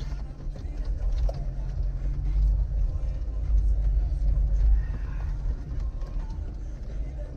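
Suzuki Vitara's 1.6-litre petrol engine running, a steady low hum with a rumble that swells and eases while the vehicle drives.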